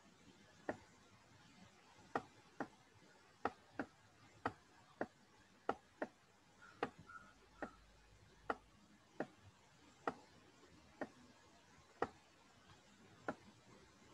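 Computer mouse button clicking: sharp single clicks at an irregular pace, about one or two a second, as the brush tool dabs spots of paint.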